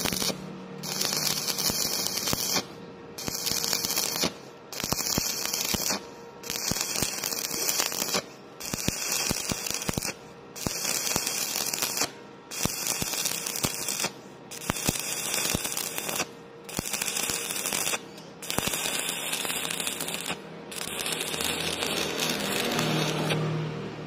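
Stick (SMAW) welding arc crackling and hissing in bursts of about a second and a half to two seconds, broken off briefly about a dozen times. The arc is broken and restruck again and again, a stop-start technique for bridging a 5 mm gap in thin steel without burning through. The arc stops just before the end.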